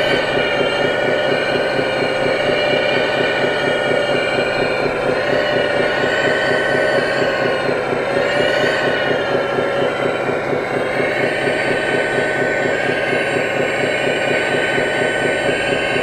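Scale RC hydraulic excavator (a 330-class model) running its hydraulic pump with a steady whine whose pitch dips and recovers a few times as the boom and bucket are worked under load.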